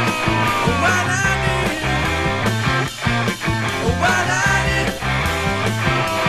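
Rock band music with a steady beat, played from the original 1976 vinyl record.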